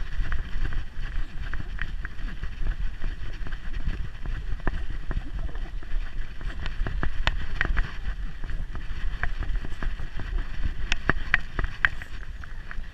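Steady low rumble of wind and handling noise on a GoPro strapped to a moving dog's back, with scattered light clicks and ticks throughout.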